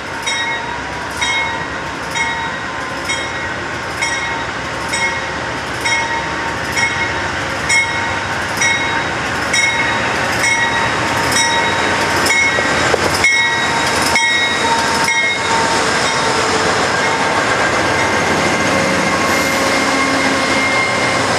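Amtrak GE Genesis diesel locomotive's bell ringing about once a second as the train rolls slowly into the platform. About 15 s in the bell fades under the louder, building sound of the diesel engine and wheels as the locomotive passes close by.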